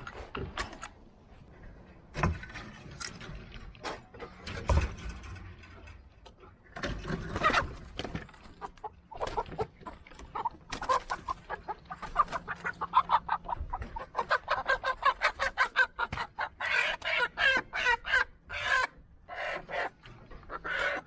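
Chickens clucking: a long run of short, quick clucks, several a second, fills the second half, with a few knocks in the first several seconds.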